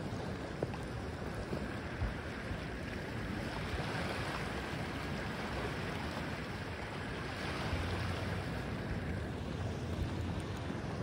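Wind rumbling on the microphone over a steady wash of sea water.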